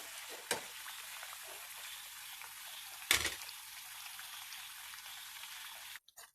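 Thattai frying in hot oil, a steady sizzle, with a few light knocks and one louder knock about three seconds in. The sizzle cuts off suddenly near the end.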